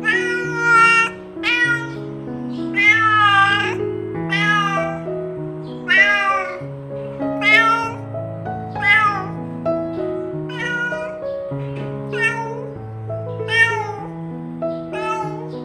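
Domestic cat meowing again and again, about one meow every second and a half, over background music.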